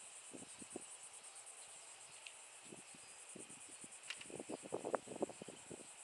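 Faint, steady high-pitched trill of insects, rapidly pulsing, with small irregular laps of water against the kayak hull that grow busier about four to five seconds in.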